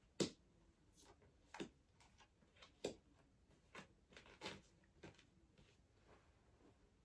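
Picture cards being set down one at a time on a cloth mat: a string of faint, soft taps and rustles, roughly one a second, at uneven intervals.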